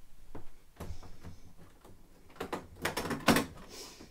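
A suitcase being opened: a run of short clicks and knocks from its catches and lid as it is handled, the loudest a little after three seconds in.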